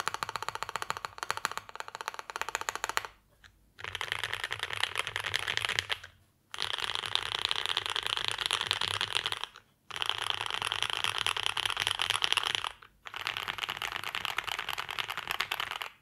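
Fast typing on a Mode 80 mechanical keyboard with lubed Banana Split switches in an aluminium plate and GMK keycaps: rapid keystrokes in five runs broken by brief pauses.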